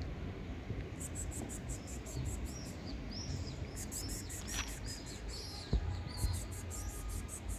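Outdoor ambience: small birds chirping in short, quick calls over a fast, very high-pitched pulsing trill, about six pulses a second, with a steady low rumble of background noise.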